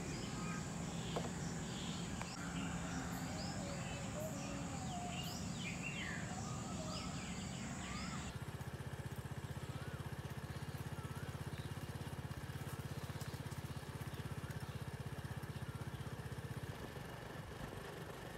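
Birds chirping over a steady low hum. About eight seconds in, the sound cuts to a steady low engine drone of a moving vehicle, with a few more bird chirps.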